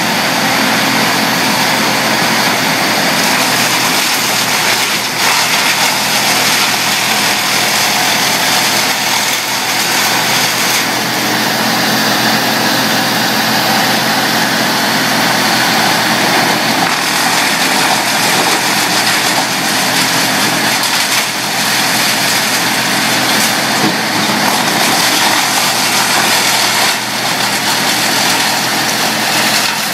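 Bandit trailer-mounted wood chipper running steadily at working speed while branches are fed in and chewed into chips.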